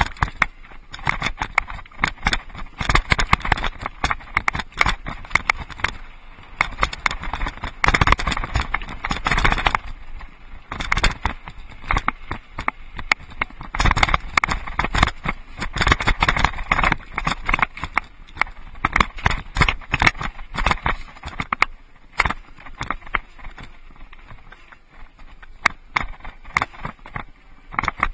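Mountain bike rattling and clattering as it rides over a rocky, gravelly trail, the tires crunching on loose stones. The clatter comes in two louder, rougher stretches, about a third of the way in and again around the middle.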